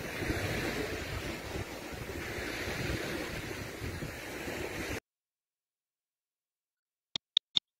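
Steady outdoor wind and water noise from a phone video's sound track, cutting off suddenly about five seconds in. Silence follows, then three short clicks near the end.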